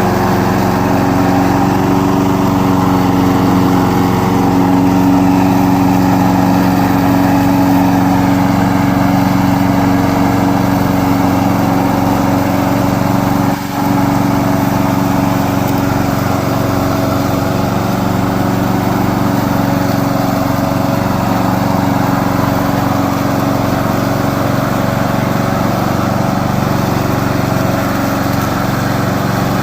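Gasoline engine of a remote-control lawn mower running steadily, with a brief dip in loudness about fourteen seconds in.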